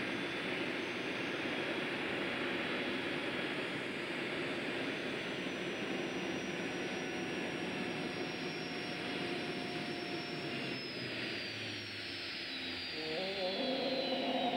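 Twin gas-turbine engines of a turbine pulling tractor running, a steady rushing noise with a thin high whine over it. About ten seconds in, the whine starts falling steadily in pitch as the turbines slow.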